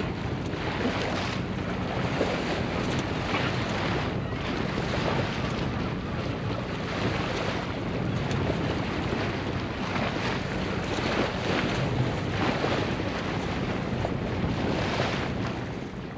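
Wind buffeting the microphone and water washing past the hull of a small sailboat under way, with a steady low hum underneath. The sound fades out near the end.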